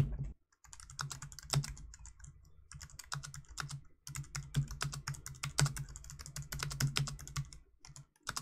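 Typing on a TypeMatrix 2030 ortholinear keyboard's scissor switches: a quick, uneven run of light key clicks. It opens with a fraction of a second of louder, thuddier typing on a different keyboard that cuts off about half a second in.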